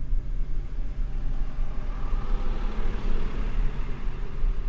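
Road noise inside a moving car: a steady low rumble of engine and tyres, with a hiss that swells up and fades again around the middle.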